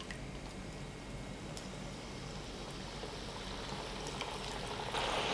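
Potato fingers frying as they are lowered into hot oil in a kadhai: the oil bubbles and sizzles with a steady hiss that builds, then gets clearly louder near the end.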